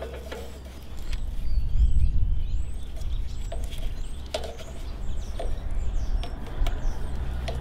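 Birds chirping with short whistled calls over a steady low rumble, with a few light clicks and knocks as hands work at the tiller's axle seal and hub.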